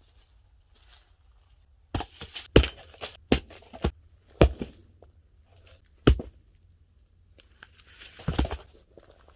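Firewood being split with an axe: a run of sharp wooden knocks and cracks starting about two seconds in, one more a little after six seconds, and a rougher clatter of wood near the end.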